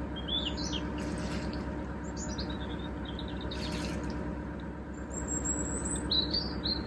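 Small birds chirping on and off, over the steady low drone of the narrowboat's diesel engine.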